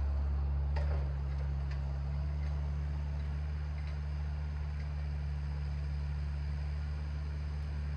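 A steady low mechanical hum, with a few faint clicks in the first two seconds.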